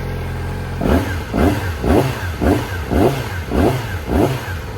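Yamaha R6 Race inline-four engine, warmed up, idling and then blipped about seven times in quick succession, each rev rising and dropping back, before settling to a steady idle near the end.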